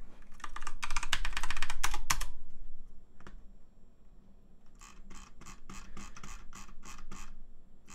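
Computer keyboard typing: a quick flurry of key clicks for about two seconds, a single click after a pause, then a steady run of key clicks at about three a second near the end.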